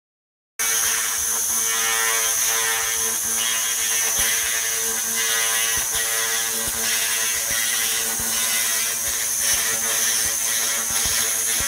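Handheld laser cleaning head working over a tire mold: a steady high-pitched whine with a steady hum beneath and an irregular crackle as the beam ablates the dirt, starting abruptly about half a second in.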